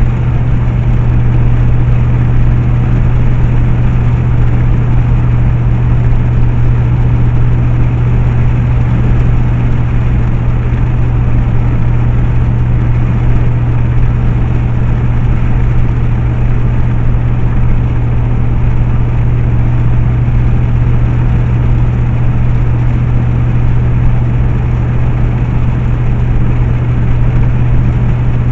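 Steady engine and road noise inside a vehicle cruising at highway speed: an even low drone with tyre hiss, unchanging throughout.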